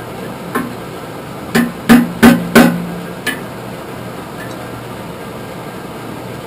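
Blacksmith's hammer striking red-hot steel on an anvil, six blows in the first few seconds, each ringing briefly, the loudest four in quick succession about two seconds in. A steady rushing noise runs underneath.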